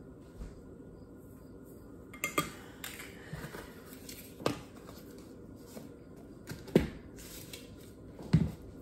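Kitchen utensils handled at a mixing bowl: a measuring spoon and small containers tapping and clinking against the bowl and countertop, about five short sharp knocks spread out, the last two loudest.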